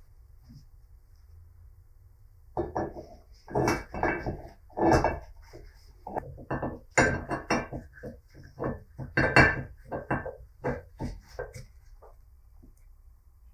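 Metal parts of a bench vise knocking and clinking as they are handled. A run of irregular knocks starts about two and a half seconds in and dies away near the end.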